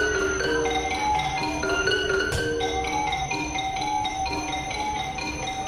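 Thai classical piphat music led by a ranat ek (Thai xylophone) playing a quick running melody of short mallet notes, the accompaniment for a khon masked dance. One sharp click comes about two seconds in.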